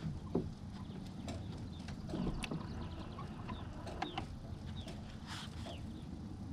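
Lakeside ambience: a low steady rumble with scattered short, falling bird chirps and a few faint clicks.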